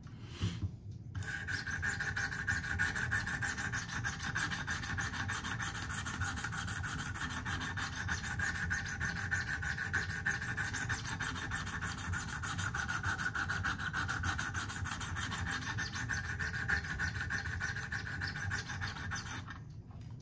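Abrasive stones of a Wicked Edge guided sharpener scraping back and forth along a clamped pocket knife's recurve blade in rapid strokes, grinding out chips in the edge. The scraping starts about a second in and stops shortly before the end.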